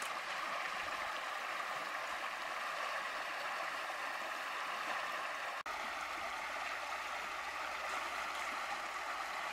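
Steady rush of water pouring out of a concrete culvert, with a momentary dropout a little past halfway.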